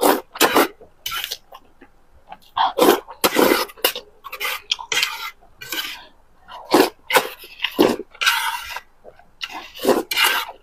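Spicy noodles being slurped and chewed close to the microphone, in irregular loud, noisy bursts with short pauses between mouthfuls.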